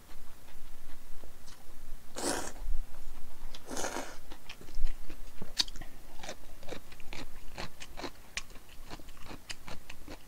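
A mouthful of naengmyeon noodles slurped in two short pulls, about two and four seconds in, then close-miked chewing with many small clicks of the mouth.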